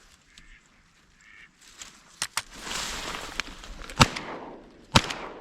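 A few duck quacks early on, then two shotgun shots about a second apart near the end, the loudest sounds here.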